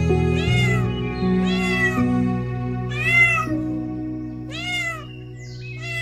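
Domestic tabby cat meowing five times, about a second and a half apart, each meow rising and then falling in pitch. Background music with sustained chords plays underneath.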